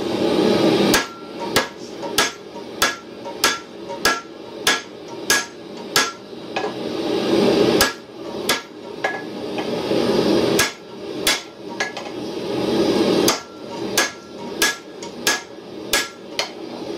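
Hammer blows on a red-hot steel block forged from a tow ball, held on an anvil: runs of sharp strikes about one and a half a second, each with a short metallic ring. A steady rushing noise swells in the pauses between runs.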